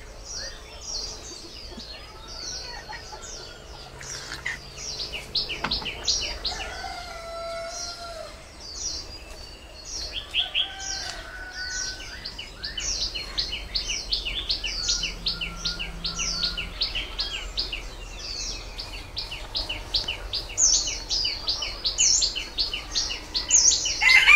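Birds chirping rapidly and without pause, many short high chirps overlapping, with a few lower drawn-out calls from fowl; a rooster starts crowing loudly right at the end.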